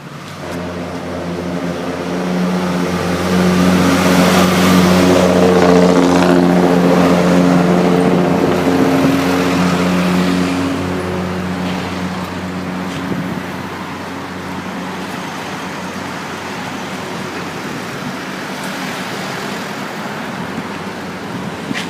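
A motor vehicle's engine running at a steady speed, its pitch unchanging. It grows louder over the first few seconds, holds for several seconds, then eases back to a steadier, lower level.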